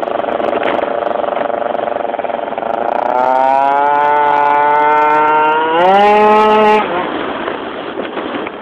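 Tuned Yamaha Jog RR two-stroke scooter engine with a Hebo cylinder kit, running steadily at first. From about three seconds in the revs climb as it accelerates, jump sharply higher near six seconds and hold briefly, then drop away about a second later as the throttle is shut.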